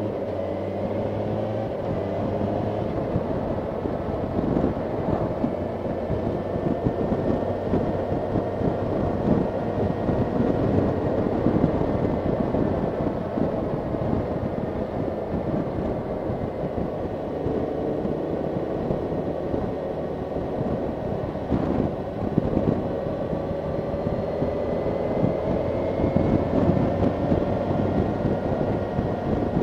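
Motorcycle engine running on the move, its note rising as the bike picks up speed, with wind noise on the microphone.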